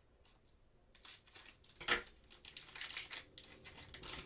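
Trading cards being handled and shuffled in gloved hands: soft, irregular rustling and crinkling that starts about a second in, with its loudest crinkle just before two seconds.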